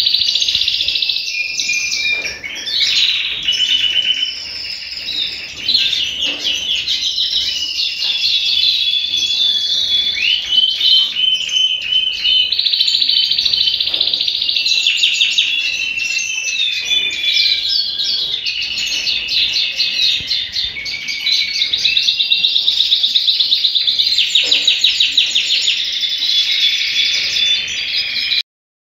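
Red canary singing a long, unbroken song of rapid trills and rolling repeated notes, loud and close. It cuts off abruptly near the end.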